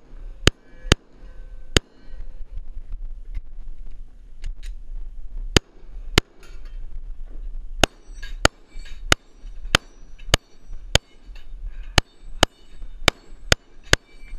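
Glock 19 9mm pistol firing about sixteen shots at steel targets: a quick few, a pause of several seconds, a pair, then a steady string about every half to two-thirds of a second. The steel plates ring faintly after the later hits.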